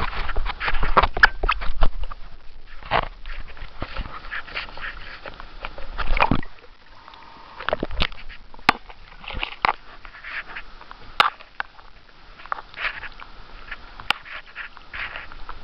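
Beluga whale sounds heard underwater: a series of irregular sharp clicks, densest in the first two seconds, with a faint high whistle-like tone at times.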